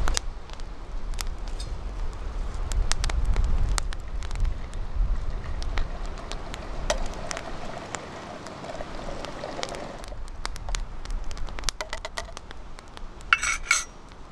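Wood campfire crackling and popping throughout, with a low rumble in the first few seconds. Midway, liquid from a camp kettle pours into a metal mug for about three seconds, and near the end there is a short metallic clink.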